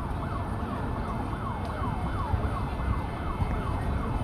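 A siren sounding in quick, repeated falling sweeps, about three a second, over a low rumble.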